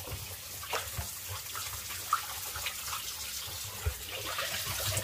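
Kitchen tap running into a plastic bowl in the sink, the water splashing over fish fillets being rubbed by hand under the stream, with a few short knocks.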